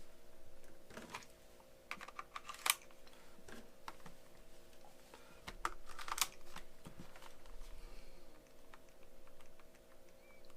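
Scattered light clicks and taps of a handheld game console being handled and its buttons pressed, with sharper clicks about three and six seconds in, over a faint steady hum.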